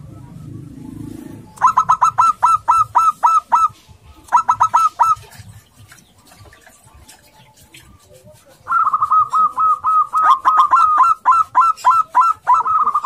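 Local zebra dove (perkutut) giving its aggressive male call: rapid runs of short, hooked cooing notes, about five a second. There are three runs: one of about two seconds near the start, a short one about four seconds in, and a long one starting about nine seconds in.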